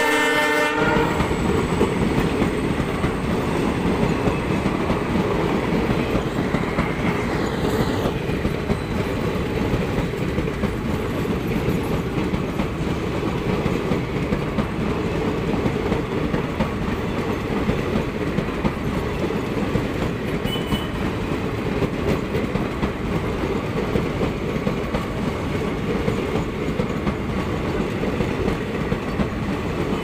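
Passenger coaches of an express train passing at speed: a steady rumble with the clatter of wheels over the rails. The WDG4 diesel locomotive's horn is still sounding as it begins and cuts off about a second in.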